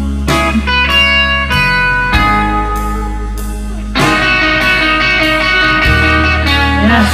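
Electric guitar playing an instrumental break in a slow blues-rock ballad, chords struck about every half second over a sustained bass line; the band gets fuller and louder about four seconds in.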